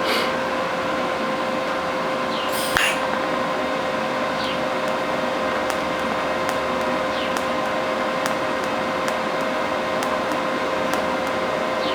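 TIG welding arc burning steadily on steel, a continuous hiss with a steady buzz, as the pinholes are filled with a bead. There is one sharp click just under three seconds in.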